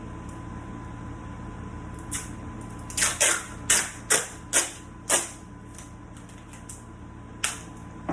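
A quick run of about six sharp clicks or taps about three seconds in, with a couple of single ones before and after, over a steady hum.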